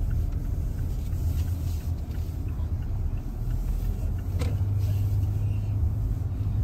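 Car cabin noise while driving: a steady low rumble of engine and road, with a single brief click about four and a half seconds in.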